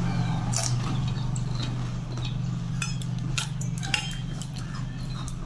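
Steel spoon clinking and scraping against stainless-steel plates and a bowl while pani puri are cracked open and filled with pani, in many short irregular clinks. A steady low hum runs underneath.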